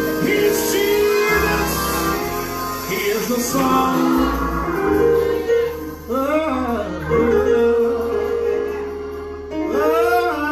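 Live gospel music: a band plays held chords over a steady bass, with singing that slides up and down in pitch about two-thirds of the way in and again near the end.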